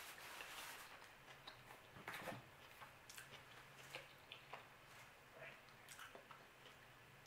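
Faint chewing of pizza, with soft wet mouth clicks and squishes scattered throughout, over a low steady hum.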